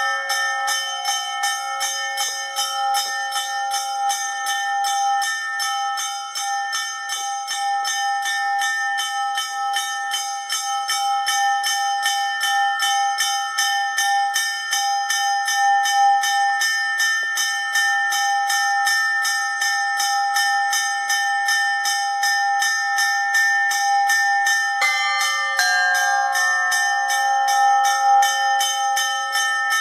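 Russian Orthodox church bells ringing (zvon): several bells sound together in a fast, even run of strikes. About 25 seconds in the pattern changes as a lower bell joins in.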